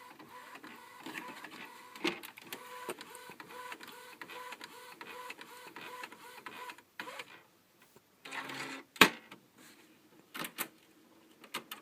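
Epson Stylus Photo R800 inkjet printer printing, its mechanism running steadily with a light rapid ticking, working again after a stuck paper (PE) sensor was freed. About seven seconds in it stops, then a short whir, one sharp click and a few fainter clicks follow.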